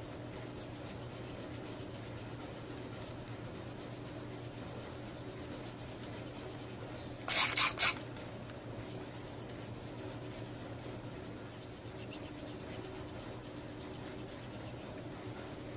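Fine file scraping in quick, even strokes across the cured acrylic filling in a metal saxophone mouthpiece's bite plate, shaping the tooth-gouge repair flush. About seven seconds in, a brief, louder scraping burst breaks the strokes.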